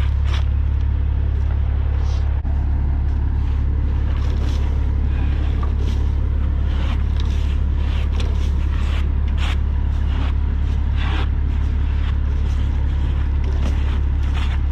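Dirt being scraped and knocked off a bulldozer's steel tracks in short, irregular strokes, over a heavy diesel engine idling steadily.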